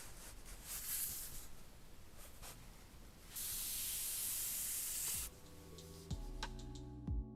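Soft rubbing and handling noise, with a steady hiss lasting about two seconds midway. Near the end, background music with a bass line and a beat comes in.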